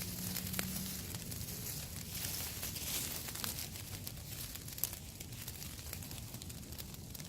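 Rustling and crinkling from shelter materials being handled, with scattered light clicks over a steady high hiss.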